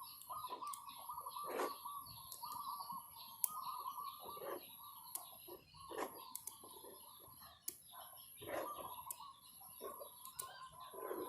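Birds chirping steadily, with sharp clicks of small magnetic balls snapping together every second or two.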